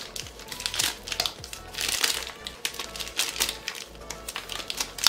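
Plastic piping bag crinkling and crackling in short bursts as it is handled and tied off, over background music.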